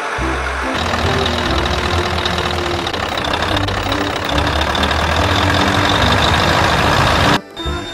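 Truck engine sound effect idling steadily with a rough, knocking rumble, laid over a toy tipper truck being pushed by hand. It cuts off abruptly near the end.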